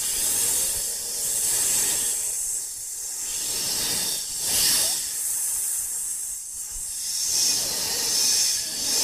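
A loud hissing noise that swells and fades several times.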